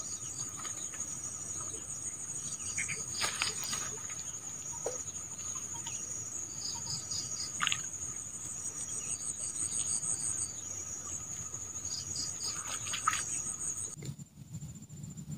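Steady, very high-pitched trilling of insects, with a few short rustles and clicks of handling. The trilling drops off sharply near the end, leaving a fainter trill.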